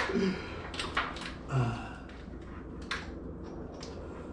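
Scattered light clicks and knocks from hands handling parts while a car's clutch cable is being routed and fitted.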